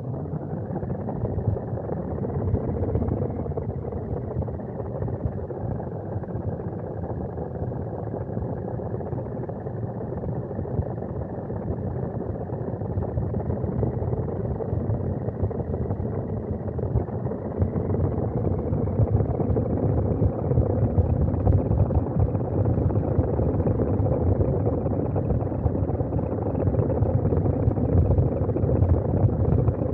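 Small electric RC car driving, its motor and drivetrain whining steadily over a dense rumble from the chassis and tyres. It grows somewhat louder about two-thirds of the way through.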